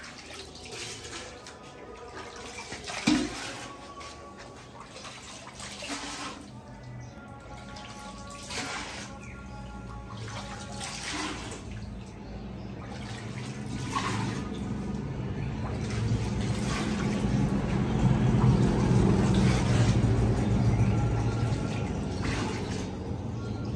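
Background music over water running and splashing, swelling louder in the second half and easing off near the end.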